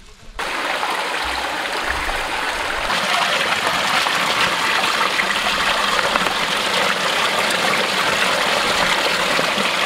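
Forest stream running close by, a steady rush of water that cuts in suddenly and grows a little louder about three seconds in.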